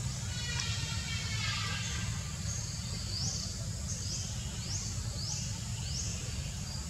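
Outdoor ambience: a bird repeats a short, high, rising chirp about every half second over a steady low rumble.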